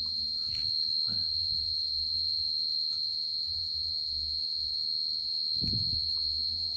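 A steady high-pitched whine over a low hum, from the running DIY Peltier cooler (thermoelectric module with heatsink and fan) and its power supply, with two brief soft knocks or rustles about a second in and near the end.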